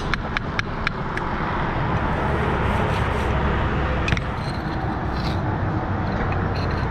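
Light clicks and taps of a steel pointing trowel against brick and mortar while filling joint gaps, in a quick run during the first second and one sharper tap about four seconds in, over a steady low outdoor rumble.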